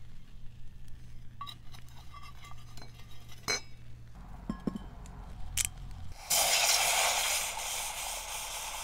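A stainless steel cup clinks and taps against a wire grill grate as it is set down. About six seconds in, liquid starts pouring from a glass bottle into the cup, a loud steady rush that carries on.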